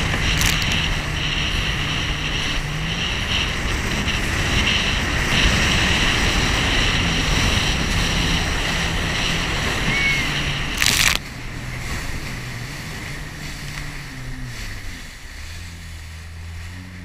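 Jet ski running across choppy sea: a steady rush of wind and water spray over a low engine hum. About eleven seconds in the noise drops suddenly and the engine hum is heard more plainly.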